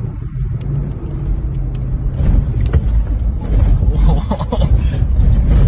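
Steady low engine and road rumble of a moving vehicle, getting louder about two seconds in.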